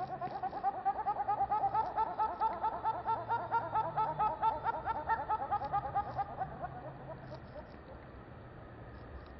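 Little grebe giving its whinnying trill: a fast run of short notes, about nine a second, that swells and then fades out about seven seconds in.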